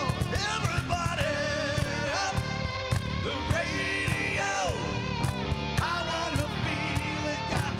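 Rock band playing live: electric guitar leads with bending notes over bass and a steady drum beat.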